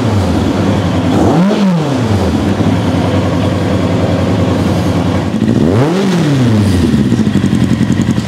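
Kawasaki ZZR 1100 inline-four motorcycle engine in a race car, idling and blipped twice: the revs rise and fall quickly about a second and a half in and again about six seconds in. It runs well and answers the throttle quickly, and the sound cuts off suddenly at the end.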